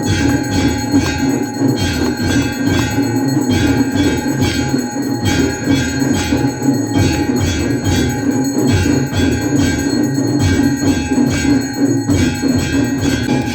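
Temple aarti: bells ringing continuously over a fast, even drumbeat.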